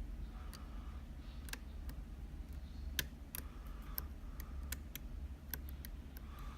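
Small, sharp metallic clicks and ticks from a hook lock pick working the pins of a Yale rim cylinder under a tension wrench, coming at uneven intervals, with one louder click about three seconds in.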